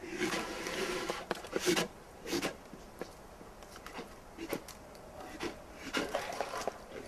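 Black bear blowing and clacking its jaws, a defensive warning that it feels threatened. Several breathy huffs come in the first couple of seconds, then scattered sharp clacks.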